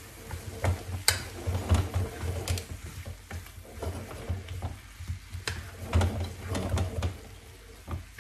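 A spatula stirring Brussels sprouts, tomato and shallots in a frying pan over the heat, with irregular scrapes and knocks against the pan over a sizzle.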